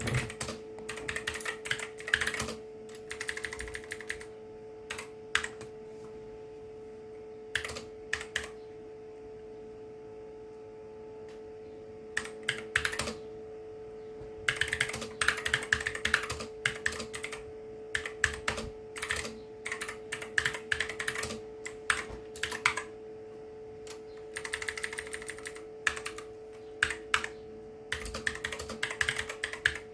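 Typing on a mechanical keyboard with blue switches: sharp clicky keystrokes in bursts of rapid clicks separated by short pauses. A steady faint hum sits underneath.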